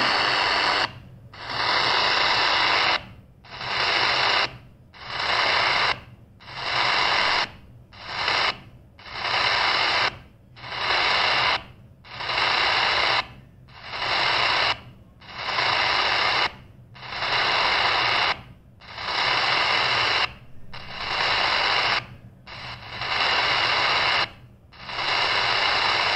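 Medium wave static hissing from the speaker of a CS-106 DSP radio as it is tuned by hand up the AM band, one 9 kHz step at a time. The sound cuts out briefly at each step, about every second and a half, as the receiver mutes while retuning, and no station comes through.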